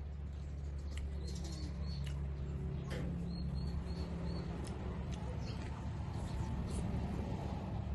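Mouth sounds of a person eating: chewing, lip smacks and sharp little clicks scattered through, over a steady low hum.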